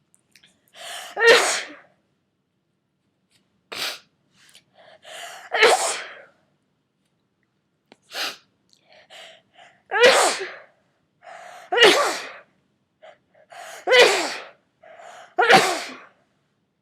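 A person with a cold in a sneezing fit: about six loud sneezes in quick succession, each preceded by a short catching, gasping intake of breath, with a few smaller sneezes or sniffs between them.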